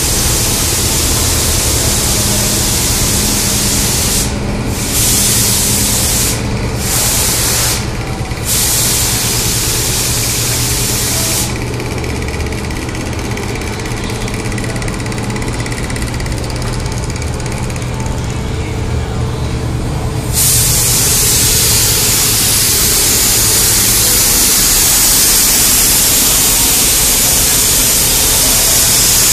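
Gravity-feed air spray gun hissing as kandy paint is sprayed. The hiss breaks off briefly three times in the first ten seconds, stops for about eight seconds midway, then resumes. A steady low hum runs underneath.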